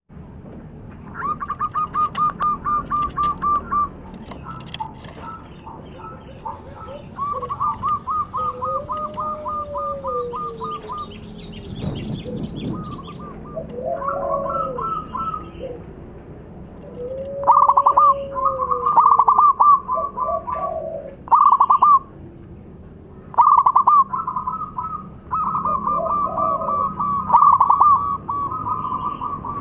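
Zebra dove (perkutut) cooing in full song: repeated fast, stuttering runs of short notes, broken by a few longer, lower coos that rise and fall.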